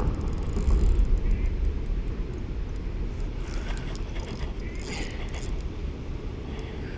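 Steady low rumble of wind buffeting the microphone, easing off over the first couple of seconds, with faint scratches and ticks of a spinning rod and reel being handled near the middle.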